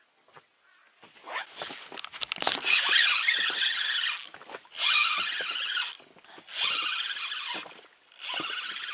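Spinning fishing reel squealing in repeated bursts of about a second, starting over a second in, while a hooked fish is played on a feeder rod.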